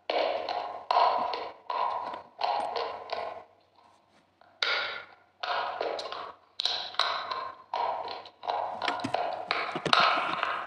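Close-miked crunching as brittle, thin white sheets are bitten and chewed: about a dozen crisp crunches, each sharp at the start and fading within half a second. There is a short pause a few seconds in, then the crunches come faster near the end.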